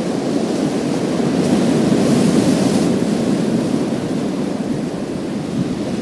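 Sea waves breaking and washing over a pebble beach as a continuous surf noise. One wave swells about a second and a half in, bringing a brighter hiss, then eases off.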